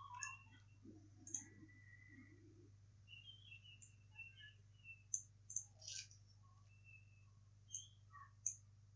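Faint computer-mouse clicks, a dozen or so scattered short sharp ticks, over a low steady hum, with a few faint high chirps between them.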